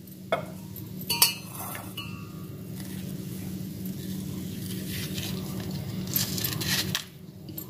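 A metal spoon scraping the pulp out of a bael fruit's hard shell into a stainless steel bowl. It opens with two sharp clinks of metal on the steel bowl, then settles into steady scraping that stops near the end.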